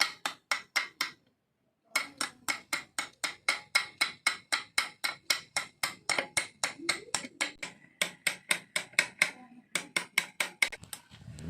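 Rapid, rhythmic hammer blows, about four or five a second, each with a short ringing note, pausing briefly about a second in and then running on before thinning out near the end.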